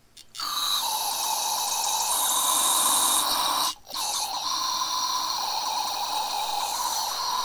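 Fuel running into the pony motor's sediment bowl as the fuel is turned back on: a steady hiss that breaks off for a moment about four seconds in.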